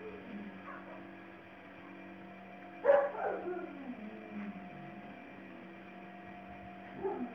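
Labrador puppy giving one loud bark about three seconds in that slides down in pitch into a whine over about a second, then a shorter yelp near the end. It is the frustrated, "mad" barking of a puppy that can't get off the bed.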